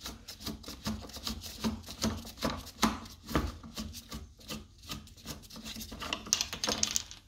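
Hands in disposable plastic gloves unscrewing a plastic toilet-seat fixing nut: irregular rubbing and short clicks of plastic on plastic, with crinkling of the gloves.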